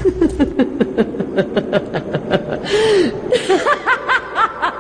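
People laughing in quick, even 'ha-ha' pulses, about five a second, with a longer breathy laugh about three seconds in and a higher-pitched laugh joining near the end.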